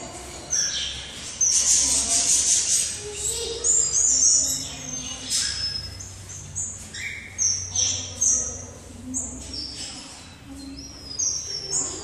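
A mixed group of small cage birds chirping and calling together: many short, high chirps and whistled notes overlapping, several of them sliding down in pitch.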